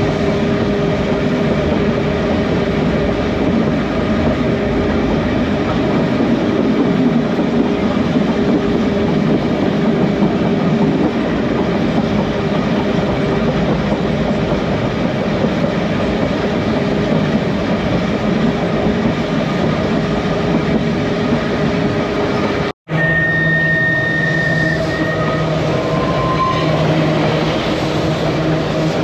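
Manx Electric Railway electric tramcar running along the line, heard on board: a steady rumble of wheels on the rails with a hum of motors and gearing. About three-quarters of the way through, the sound cuts out for an instant and comes back with a few higher steady whines.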